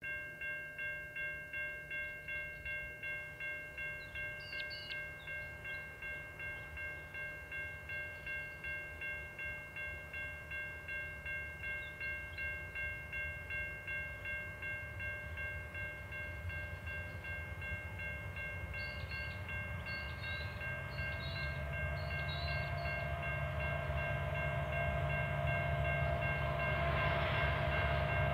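Level crossing warning bell ringing steadily, about two strokes a second. A freight train's diesel locomotives approach beneath it, growing steadily louder over the second half.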